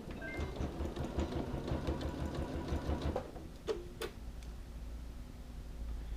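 Janome sewing machine stitching in a fast, even run for about three seconds, then stopping. Two sharp clicks follow shortly after it stops.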